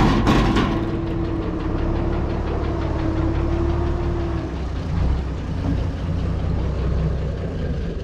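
An engine idling steadily, with a low, even running sound and a steady hum that fades out about halfway through.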